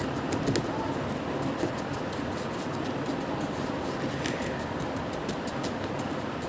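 Steady rumbling background noise with many small clicks and taps scattered through it, from hands pressing and shaping homemade play dough right next to the phone's microphone.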